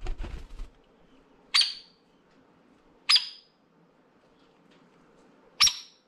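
Hairy woodpecker's wings fluttering as it flies in and lands, then three sharp, loud 'peek' calls, the last after a longer gap.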